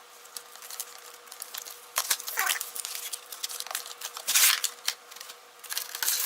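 Cardboard retail box being handled and opened: scattered clicks and taps with scraping, rustling slides, the loudest about four and a half seconds in.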